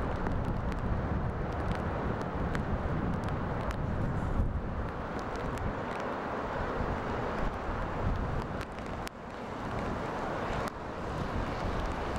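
Gusty hurricane wind buffeting the microphone in a continuous low rumble, with the hiss of car tyres on a wet road.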